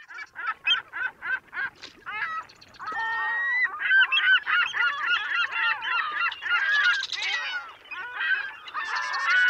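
A flock of birds calling: a quick run of short, separate honking calls, then from about two seconds in many overlapping calls together.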